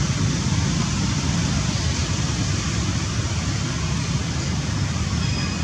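Steady outdoor background noise: a low rumble with an even hiss above it, with no distinct event standing out.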